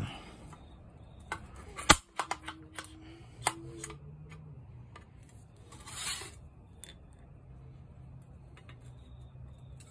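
Metal marking tools clicking and tapping against a thin steel plate on an anvil. One sharp click about two seconds in rings briefly, a few lighter taps follow, and there is a short scrape about six seconds in.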